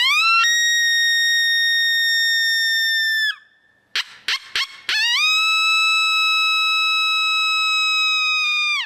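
Dogbreath open-reed coyote howler blown by mouth in an invitational howl. A long howl rises, holds steady and drops off about three seconds in. A few short, sharp barks follow around four seconds, then a second long howl that holds and tapers down at the end.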